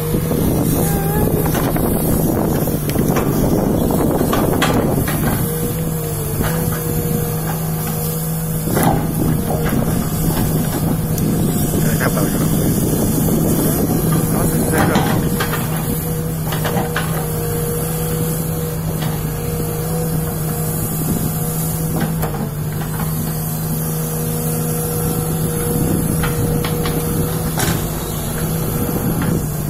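Sumitomo SH210 hydraulic excavator's diesel engine running steadily while it digs, with scattered knocks and scrapes as the bucket works the soil.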